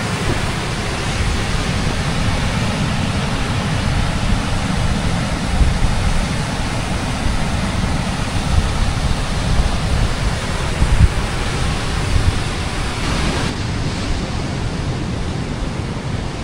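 Steady wash of ocean surf, with wind gusting across the microphone as an uneven low rumble.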